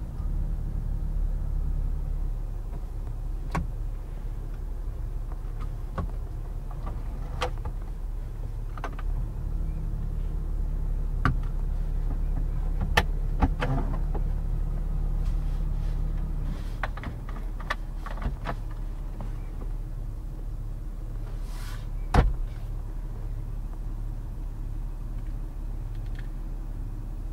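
Acura ZDX's 3.7-litre V6 idling, heard from inside the cabin as a steady low rumble, with scattered light clicks and one louder knock about twenty-two seconds in.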